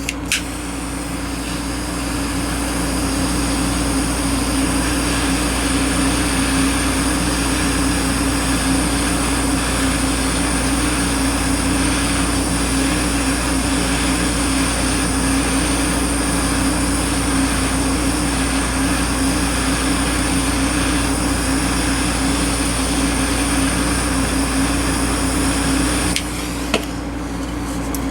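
A heating tool running steadily, a constant hiss with a low hum, heating the pivot of a pair of slip-joint pliers to free the joint. It builds over the first few seconds and cuts off near the end.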